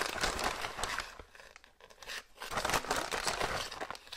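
Plastic bag of shredded sharp cheddar crinkling as it is handled and cheese is shaken out of it by hand, with a short lull about a second in before the rustling picks up again.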